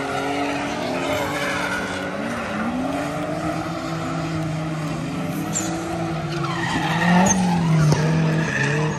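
Several drift cars sliding through a corner together, their engines revving up and down as the drivers work the throttle, with tyres squealing and skidding. The engine notes rise and fall throughout and get louder about seven seconds in.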